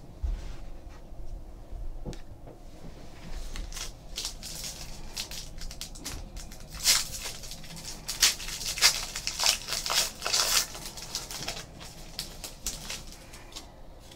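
A pack of 2015 Panini Diamond Kings baseball cards being torn open by hand: a run of crackling, rustling tears and crinkles of the wrapper, busiest in the middle.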